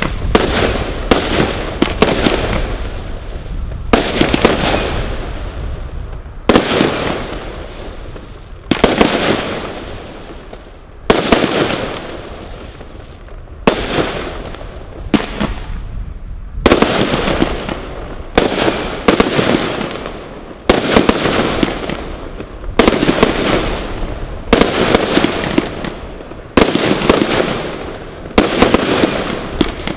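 CE Category 3 combination Roman candle firing a long run of shots. Each is a sharp bang, often coming in quick pairs or small clusters, every second or two, and each fades out over a second or so before the next.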